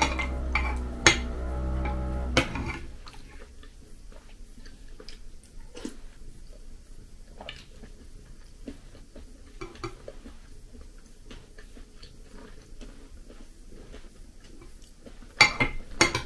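A metal spoon clinks and scrapes against a ceramic bowl of crunchy granola, with soft chewing between the strokes and a louder run of clinks near the end. Under the first couple of seconds a steady held musical chord plays, then stops.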